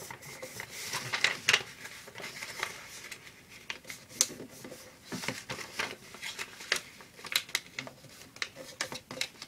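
A sheet of paper being folded and creased by hand on a desk, with irregular rustles and crisp creasing strokes as each corner is folded in to the center.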